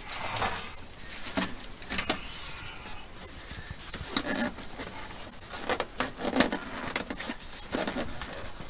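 Scattered light knocks, taps and rustling at irregular moments, the sound of someone moving around and handling things while working on the back of a refrigerator.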